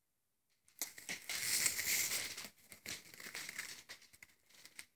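Woven straw hats rustling and crackling as they are handled and turned over, starting about a second in and loudest for the next second or so, then fading.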